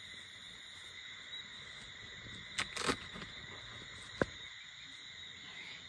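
Tent fabric rustling briefly twice, about two and a half to three seconds in, as it is handled, with a sharp click a little past four seconds, over a steady high insect trill.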